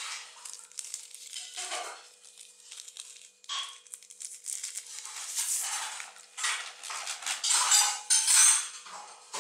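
Thin plastic sleeve crinkling and rustling in irregular bursts as a smartphone is handled and slid out of it. The bursts are loudest in the second half.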